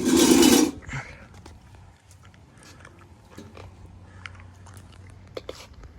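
A loud noisy burst in the first second, then someone chewing cooked squirrel meat close to the microphone: scattered soft clicks and smacks.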